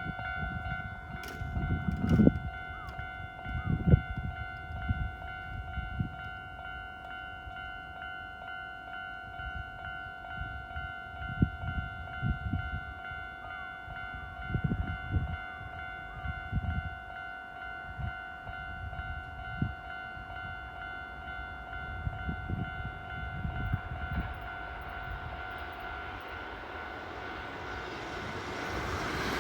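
Railway level-crossing warning alarm ringing steadily, with irregular low rumbles. A Kintetsu 12400-series limited express approaches: its running noise swells over the last five seconds or so.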